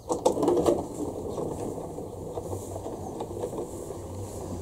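Robotic lawn mower running with a steady low hum, after a quick cluster of clicks and knocks in the first second.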